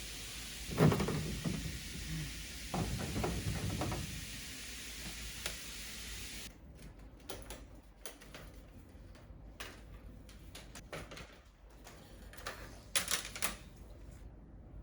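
Scattered knocks and clicks of objects being handled, a few heavier thumps in the first four seconds, over a steady hiss that cuts off suddenly about six and a half seconds in.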